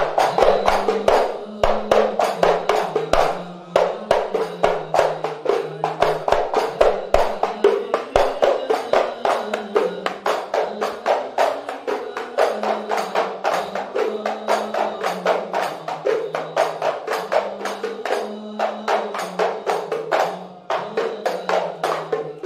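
Sholawat music: hand-beaten hadrah frame drums keep a fast, steady beat under a low melody that moves slowly from note to note.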